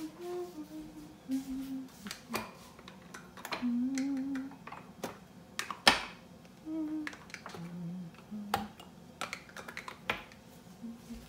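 Plastic lids being pressed and snapped onto glass and ceramic yogurt jars one after another on a stone countertop: a run of sharp clicks and taps, the loudest about six seconds in. Short hummed notes from a person come between the clicks.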